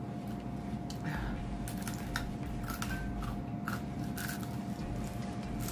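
Crunching and chewing on fried chicken: irregular crisp crunches from biting into the breading, over a steady low hum.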